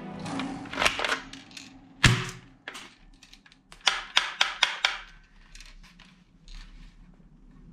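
Plastic toy rifle being handled: a hard plastic knock about two seconds in, then a quick run of sharp clicks and taps a little past the middle.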